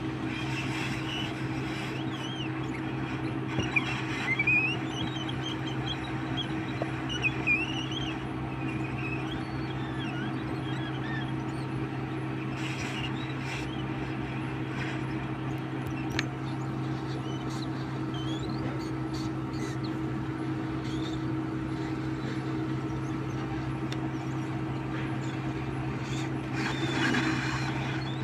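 Hot-air rework blower running steadily, a low hum over an airy hiss, heating a phone's charging connector to melt its solder. Birds chirp in the background during the first eight seconds or so.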